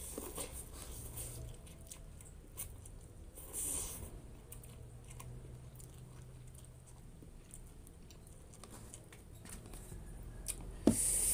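A person eating spicy instant noodles: quiet chewing with scattered small mouth and utensil clicks, and a brief louder noise a little under four seconds in, over a low steady hum.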